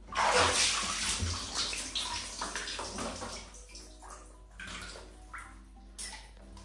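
Water splashing and sloshing in a plastic basin as a small monkey moves about in it and climbs out. The sound starts suddenly, is loudest in the first second and a half and fades away, with a few smaller splashes and drips later.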